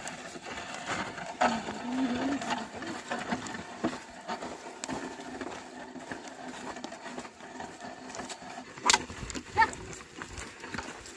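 Ploughing with a pair of oxen: scattered knocks and scraping, with a short wavering call about two seconds in and another near the end.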